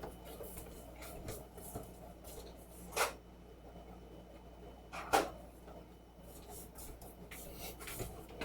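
Faint handling sounds: two short knocks about three and five seconds in, with light rubbing and small ticks between them.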